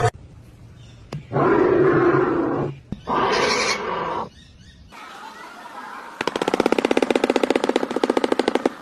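Strange bird calls: two harsh, roar-like calls, the second brighter and higher, then a fast, even rattle lasting a couple of seconds.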